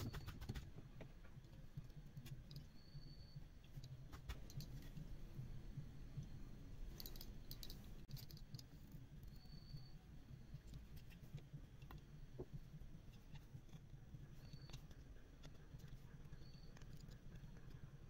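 Faint scattered clicks and taps from a soldering iron tip and fingers working on a small circuit board while wires are soldered. Under them runs a low steady hum, and a few short high-pitched tones come and go.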